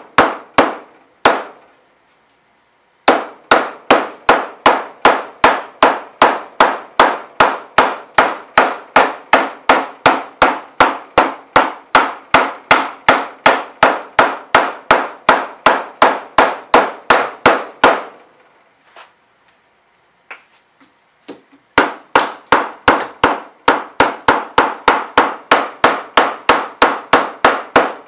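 Orange plastic mallet hammer-forming the edge of an 0.025 aluminium wing rib clamped in a form block: a steady run of sharp strikes, about three a second, each ringing briefly. The blows stop for a moment just after the start and again for a few seconds past the middle, then carry on.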